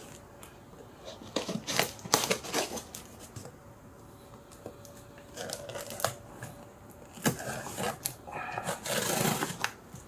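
Knife blade slitting packing tape and cardboard on a shipping box: scattered scrapes, taps and clicks, with a longer stretch of scraping near the end.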